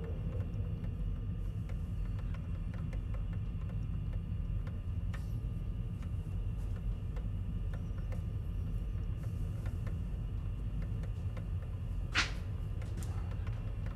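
Steady low electrical hum, with a single short, sharp click about twelve seconds in as a switch on a wall panel is thrown.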